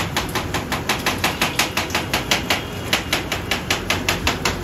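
A kitchen knife chopping vegetables rapidly on a plastic cutting board: quick, even knocks, about six a second.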